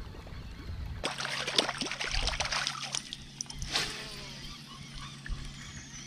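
Low wind rumble at first, then from about a second in irregular water splashing and sloshing with a sharper splash near the four-second mark, over a faint steady low hum.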